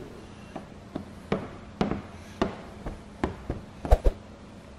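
Irregular short taps and clicks, roughly two a second, from hands pressing and tucking wet paint protection film along the edge of a truck hood, with two sharper knocks close together near the end.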